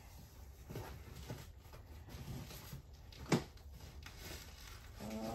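Faint rustling and handling of a cardboard shipping box being turned over and felt for an opening, with one sharp tap or click about three seconds in.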